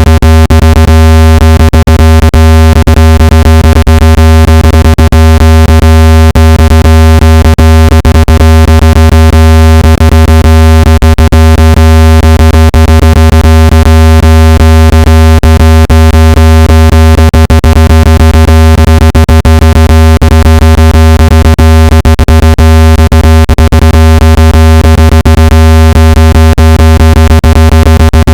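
Speaker-cleaning tone: a loud, steady, low-pitched buzz rich in overtones, crackling with rapid irregular clicks. It is played to shake water and dust out of a phone's speaker.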